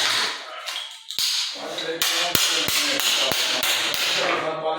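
A series of sharp taps and knocks from hand-tool work on a tiled floor, about two or three a second from about a second in.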